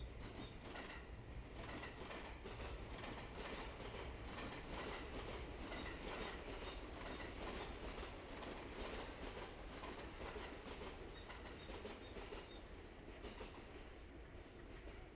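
A continuous rumbling noise with a fast, uneven clatter running through it, and faint bird chirps now and then.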